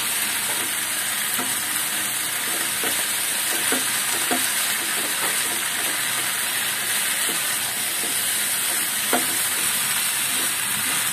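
Bamboo-leaf dried-fish (bashpata shutki) bhuna sizzling in a pan of bubbling oil as a spatula stirs it: a steady frying hiss, with a few light spatula scrapes. The fish has released its oil and is frying down, the browning stage of a bhuna.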